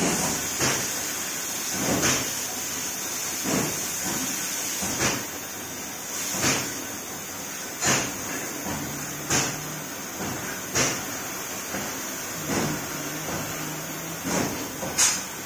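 Oxy-fuel cutting torch on a CNC profile cutting machine, hissing steadily, with a short louder surge about every second and a half. A low hum comes and goes in the middle and near the end.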